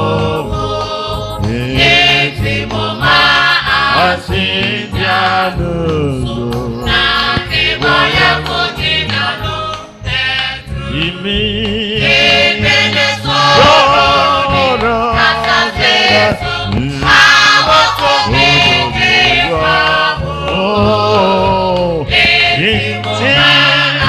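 Gospel choir singing with instrumental accompaniment, several voices in a steady, continuous song.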